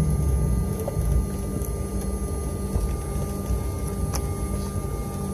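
Airliner cabin noise just after landing: a steady low rumble of the jet engines and the wheels rolling on wet pavement, with faint steady whining tones above it.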